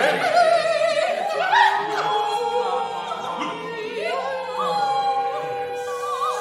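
Vocal ensemble of six singers performing contemporary art music, unaccompanied. Several voices hold overlapping notes that waver in pitch, then settle into one long steady tone held through the second half, with a higher voice joining above it for a while.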